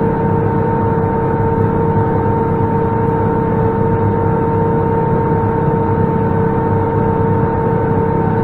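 Kuhn GMD 800 disc mower cutting hay, its discs running at speed with a steady whine, over the low, unbroken rumble of the tractor pulling it.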